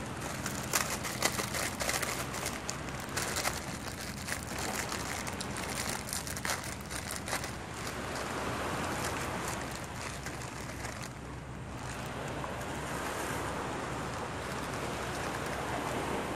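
A plastic instant-noodle packet crinkling and crackling as it is handled and torn open, with irregular crackles for the first half, over the steady wash of small surf waves.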